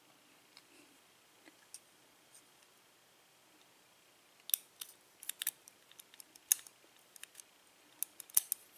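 Steel tweezers clicking and scraping against a euro lock cylinder's plug while picking a pin out of its pin hole. A few faint ticks at first, then a run of sharp metal clicks from about halfway through, loudest near the end.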